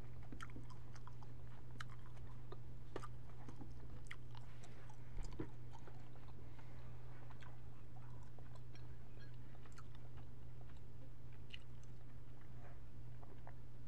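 Close-miked mouth sounds: scattered wet clicks, smacks and chewing, heard over a steady low hum.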